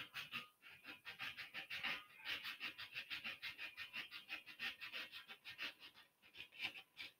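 Sandpaper worked by hand over a wooden banjitar neck, a rapid back-and-forth scratching at about four or five strokes a second, to smooth out shallow saw marks around the dowel-filled tuner holes.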